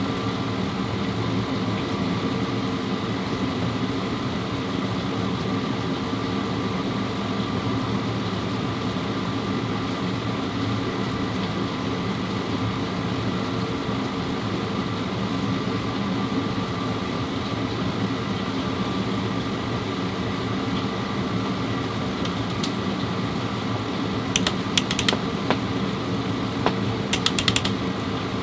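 Steady mechanical hum from a running machine, with a few quick clusters of sharp clicks near the end.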